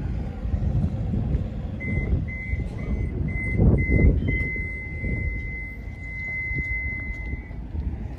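Electronic warning beeper sounding about five short high beeps, then one long steady beep of about three seconds, over a loud low rumble.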